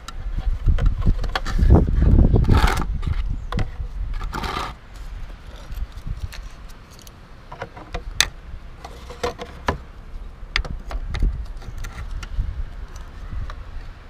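Scraping and rustling with scattered sharp metallic clicks, over a low rumble that is loudest in the first three seconds.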